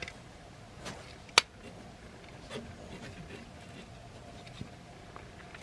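Plastic parts of a Maketoys transforming robot figure being handled: faint rubbing and a few light clicks, with one sharp click about a second and a half in.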